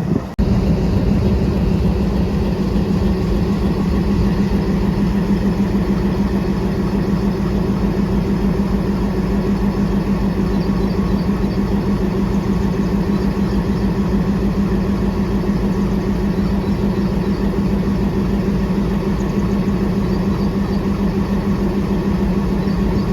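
Twin WDM-3A ALCo diesel-electric locomotives idling at a standstill, a loud, steady, throbbing engine sound with a low hum.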